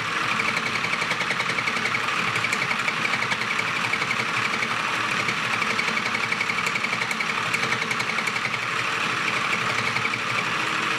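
Spin Master Sew Cool toy felting machine running: its battery-powered motor drives the felting needles rapidly up and down through two layers of felt, making a steady, fast-pulsing buzz.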